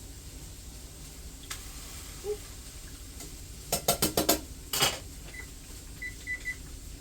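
A metal utensil knocking against cookware in a quick run of clatters, then a short scrape. A kitchen appliance then gives one short high beep, followed by three quick beeps.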